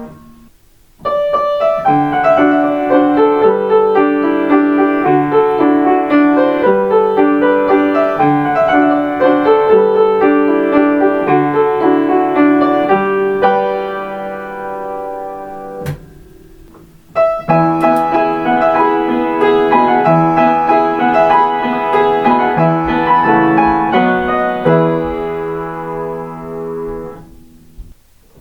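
Solo piano playing Kintetsu limited express onboard chime melodies. One phrase starts about a second in and runs to about halfway, then there is a brief pause and a second phrase that ends just before the end.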